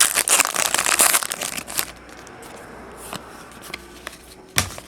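2009-10 Panini Classics basketball trading cards being handled and slid through by hand, a dense crackly rustle for about the first two seconds. It then settles to a quieter rustle with a few ticks and one sharp snap near the end.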